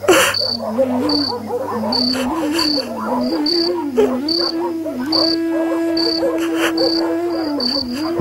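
Crickets chirping at night in short, evenly repeated high chirps, a bit over one a second, with a slow, wavering low melody of background music underneath. A sharp burst of noise right at the start.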